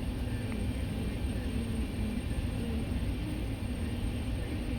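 Steady low engine rumble with a faint wavering hum.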